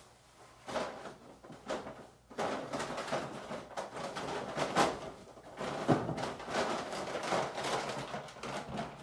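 Paper grocery bags and a plastic produce bag rustling and crinkling as groceries are handled, quieter for the first couple of seconds and then continuous.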